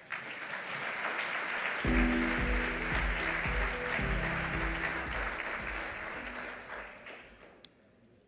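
Audience applauding, with a short piece of music with a low beat coming in about two seconds in; both fade out near the end.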